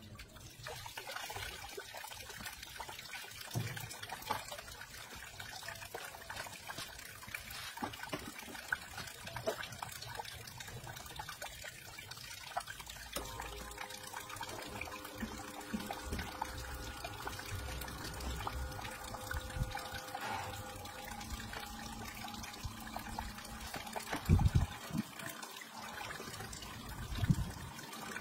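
Water splashing and trickling as it spills through the spinning plastic cups of a small homemade water wheel into a plastic tub. About halfway through a steady electric hum joins in, and there are a few knocks near the end.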